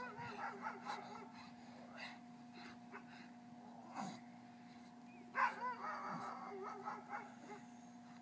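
Pit bull puppy giving short yips and whines in two clusters, near the start and again about five and a half seconds in, while it grips and tugs a bite toy.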